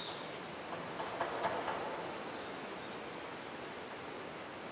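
Outdoor ambience: a steady hiss with a few faint bird chirps, and a brief swell of noise between one and two seconds in.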